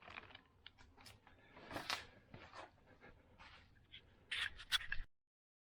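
Faint rustling and light clicks of packaging and parts being handled, with a louder rustle about two seconds in and another near the end, then the sound cuts off abruptly.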